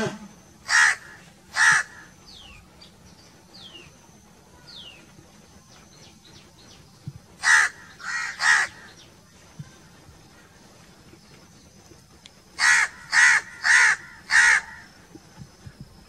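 House crows cawing: nine harsh caws in three bouts, two about a second in, three around the middle and four in quick succession near the end. Between the bouts, another bird gives faint short falling whistles.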